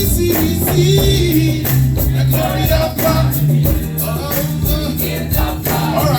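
Gospel song with singing over a steady beat, bass and shaken tambourine.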